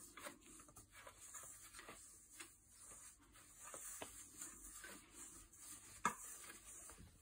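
Wire balloon whisk stirring mostly dry flour with a little milk in a stainless steel bowl: faint, irregular scraping strokes, with one sharper knock about six seconds in. The batter is still stiff and lumpy at this early stage of mixing.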